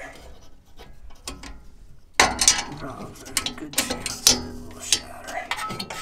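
Small metal clicks and clinks from the mounting screw and sheet-metal bracket of a gas furnace's hot surface igniter as it is unscrewed and pulled out of the burner compartment. Faint ticking at first, then a sharp clack about two seconds in, followed by a string of irregular clicks.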